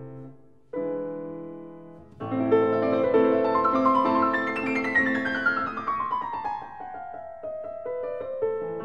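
Background piano music: chords, then a long run of notes falling in pitch through the middle.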